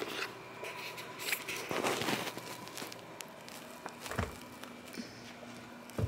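Handling noise from a handheld camera being moved about, with rustling and a soft low thump about four seconds in and another near the end.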